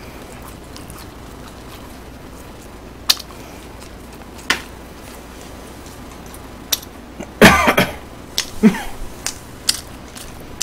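A person coughing once, about seven and a half seconds in, the loudest sound here. Scattered sharp clicks come before and after it.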